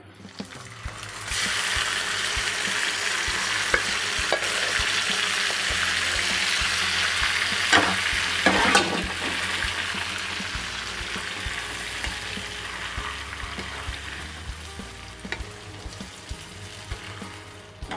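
Marinated chicken sizzling as it hits hot oil in a frying pan, a loud hiss that builds about a second in and gradually dies down over the second half. A wooden spatula knocks against the pan a few times as the chicken is stirred, loudest around the middle.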